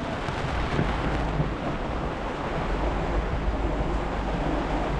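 Heavy rain falling on a sailboat in gusty wind, a steady hiss with wind buffeting the microphone.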